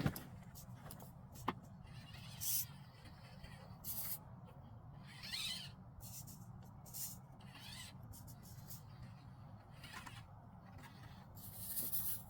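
Axial SCX24 micro RC crawler's small electric motor and gears whining in short throttle bursts, about six times, over a low steady rumble.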